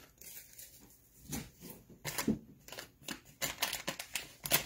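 Irregular rustling, crinkling and small clicks of hands handling plastic makeup packaging and products, with a sharper click near the end.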